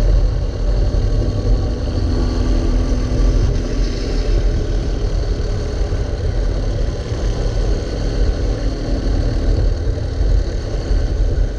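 Racing kart engine running on track, heard from the driver's seat, a steady drone with small rises and dips in pitch.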